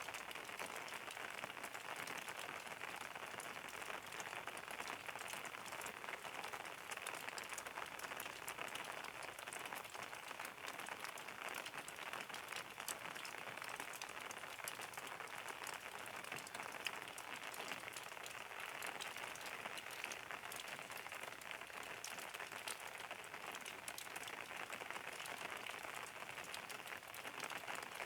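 Steady rain falling, an even hiss with a dense patter of individual drops striking a surface.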